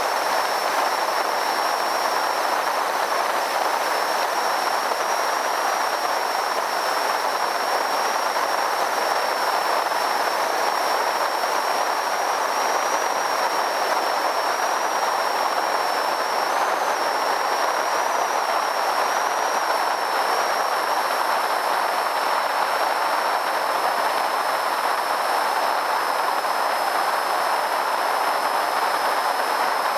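Steady rush of airflow over a wingtip-mounted camera on a Zenith CH 650 light aircraft in flight, mixed with the aircraft's engine and propeller, with a thin steady high whine above the rush.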